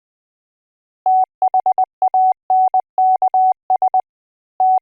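Morse code sent as a single steady beeping tone, short dots and longer dashes grouped into characters with brief gaps between them, starting about a second in.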